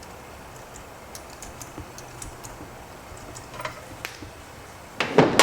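Small metal parts and hand tools clicking lightly and irregularly during valve spring and retainer assembly on a small engine's cylinder head, then a sudden louder metallic clatter near the end.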